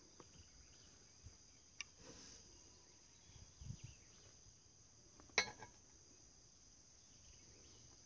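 Steady high chirring of crickets, with a few light clicks and clacks from chopped bacon being scraped out of a plastic container with a plastic spatula. The sharpest clack comes about five and a half seconds in.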